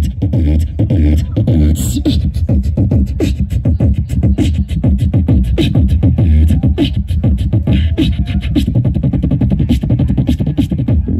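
Live beatboxing through a microphone and PA: a fast, dense run of sharp clicks and hits over a deep bass.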